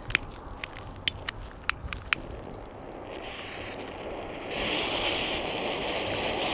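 Small ground fountain firework being lit with a jet lighter: a few sharp clicks, then a hiss that builds about three seconds in. About a second and a half later it turns into a louder, steady hiss as the fountain catches and sprays sparks.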